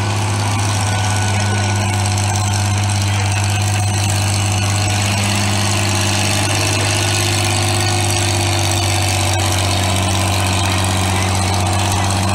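Antique farm tractor engine running at a steady speed: a loud, even drone with no revving.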